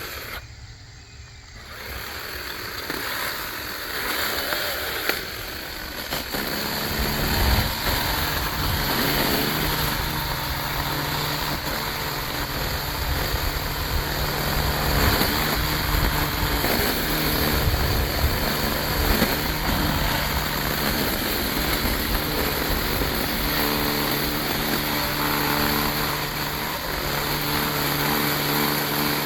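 Aircraft engine drone, steady and low-pitched, that comes in about seven seconds in and holds.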